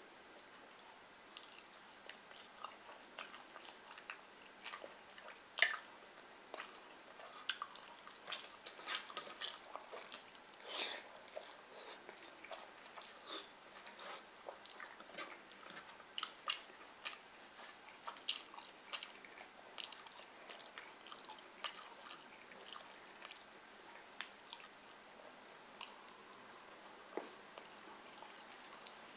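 Close-miked eating sounds: a person chewing fried fish and rice, with irregular wet smacks and small clicks, and fingers squishing through rice. One sharper click stands out about six seconds in.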